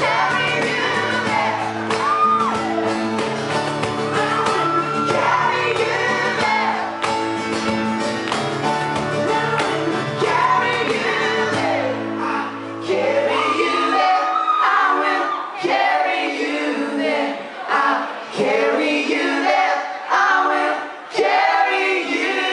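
Live pop band playing: voices singing in harmony over keyboard and guitar. About halfway through, the sustained low notes drop out and the singing carries on in short phrases with brief gaps.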